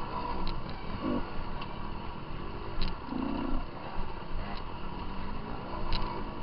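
Off-road dirt bike engines running hard on a wooded race trail, rising and falling in pitch as the throttle is worked, with several sharp clicks and knocks from the bike jolting over the ground.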